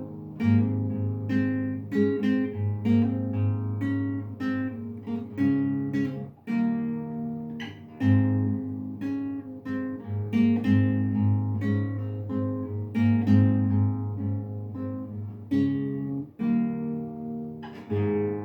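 Acoustic guitar played solo: plucked notes and chords ringing out one after another, each struck sharply and then fading.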